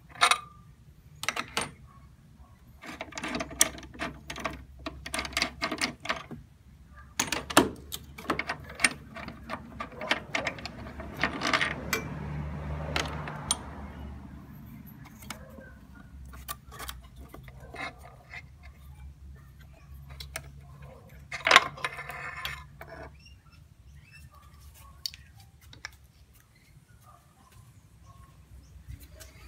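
Scattered metallic clicks, clinks and knocks of hand tools and the metal bracket and bolt of a Renault Mégane's top rear engine mount being handled during the mount's removal. There is a quick run of clicks a few seconds in and a louder clatter about three-quarters of the way through.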